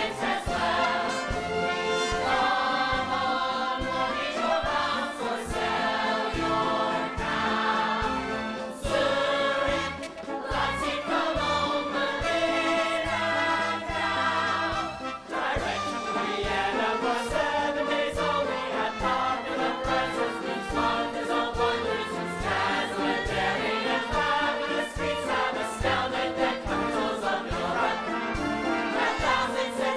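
Musical-theatre song: a group of voices singing together over a band with a steady beat.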